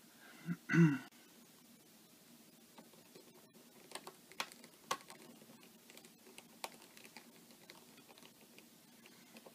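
Small, irregular clicks and ticks of tiny screws being set and turned into a laptop screen's mounting bracket, with a brief voiced sound near the start.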